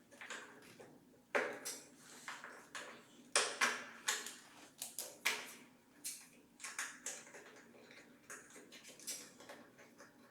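Irregular clicks, knocks and light rattles of hands working with tools and parts on a motorcycle during a battery change, sped up. The sharpest knocks come about a second and a half and three and a half seconds in.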